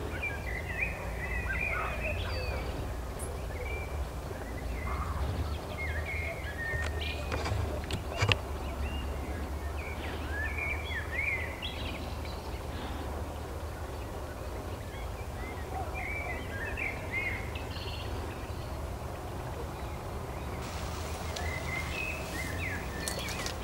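Wild birds singing in short, chirpy phrases on and off throughout, over a steady low rumble, with a single sharp knock about eight seconds in. Near the end a hiss of rustling grass joins in.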